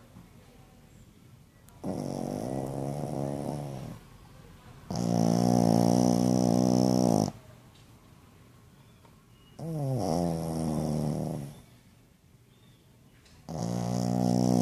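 Pekingese dog snoring: four long, buzzy snores of about two seconds each, coming roughly every four seconds, the first and third falling in pitch as they go.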